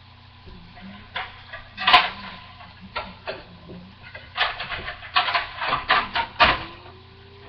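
Boneless ribeye steak sizzling inside a closed electric contact grill, with irregular pops and crackles of spattering fat, under a steady low hum.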